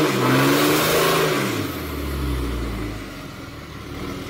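Pickup truck engine revving hard while its rear tyres spin in a burnout. The revs then drop away over about two seconds and it settles to a steady idle.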